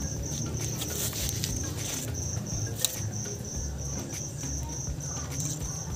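Cricket chirping steadily, a high pulsed trill about three times a second, over a low background rumble. A few light clicks and one sharp click about three seconds in come from handling metal tools.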